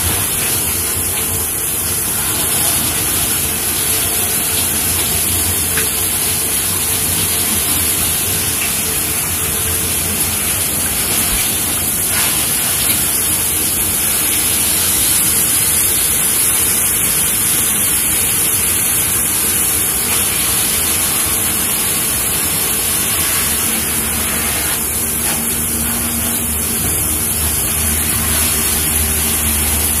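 Many fountain jets spraying and splashing back into a shallow basin, a steady rushing hiss of falling water. A low steady hum joins in near the end.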